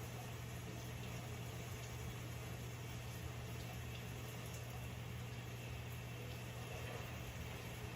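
Steady low hum with a faint even hiss over it.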